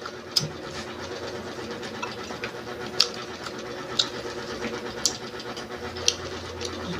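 Close-up chewing of crunchy fried food, with sharp crunches about once a second over a steady low hum.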